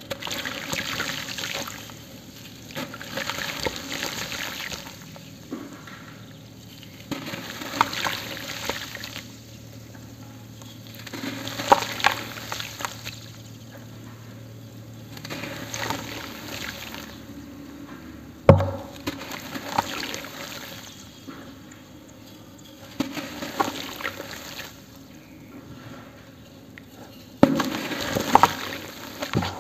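Hands crushing and crumbling lumps of dry cement into a basin of water: repeated bursts of gritty crumbling, with pieces dropping and splashing and the water sloshing. One sharp knock about two-thirds of the way through is the loudest sound.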